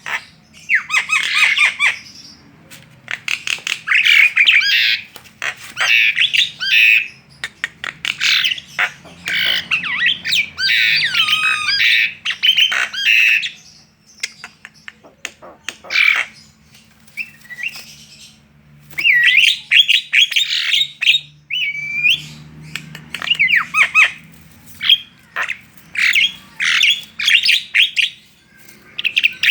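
Javan myna chattering loudly in repeated bursts: harsh squawks, rapid clicking notes and short whistled glides, with brief pauses between bursts.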